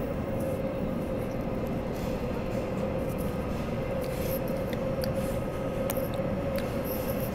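Running noise heard from inside a Bombardier/Downer Rail electric multiple unit travelling at steady speed: a constant rumble of wheels on rail with a steady whine and a few faint light ticks.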